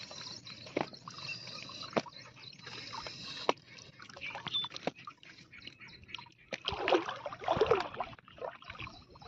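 Shallow water splashing and sloshing around a person wading and working a fine mesh fishing net, with many short sharp splashes of small fish flapping in the net. The biggest splashes come about seven to eight seconds in.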